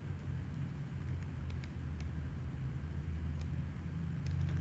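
Steady low hum of background noise picked up by the microphone, with a few faint mouse clicks scattered through it.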